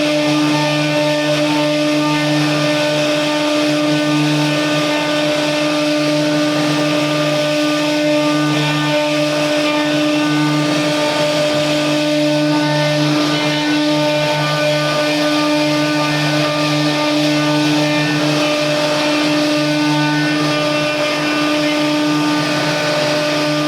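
CNC router running, its spindle giving a steady whine with several overtones over a noisy hiss.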